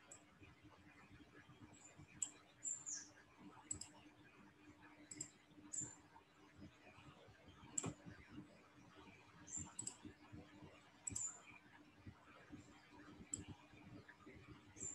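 Computer mouse buttons clicking now and then, about a dozen short, sharp clicks at irregular intervals, over a faint steady low hum.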